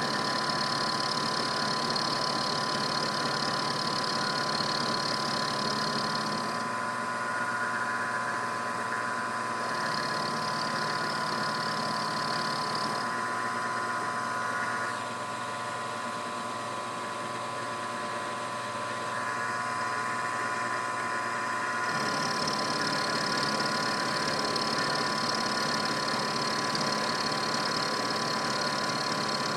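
Milling machine with an end mill cutting steel, taking a facing cut: a steady machine whine made of many tones. A higher whine drops out and comes back a few times.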